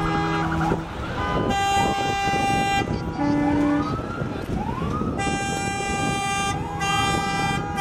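Vehicle horns honking in long blasts, with a siren giving short rising whoops again and again, over a background of crowd and lot noise.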